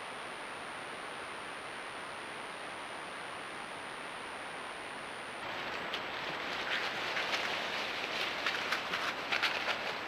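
Steady hiss with a thin high tone at first. From about five and a half seconds in comes irregular rustling and crunching of dry leaf litter, growing louder towards the end, as a coati forages and walks through it close to the camera.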